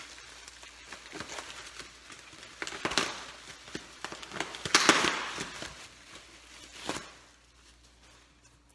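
Rustling and crinkling of packaging being handled, with scattered sharp clicks and a louder burst of rustling about five seconds in. It dies down near the end.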